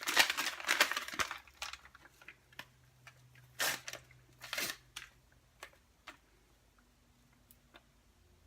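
Fajita seasoning packet crinkling and rustling as it is opened and emptied, loud for about the first second, then a few shorter crinkles and faint clicks.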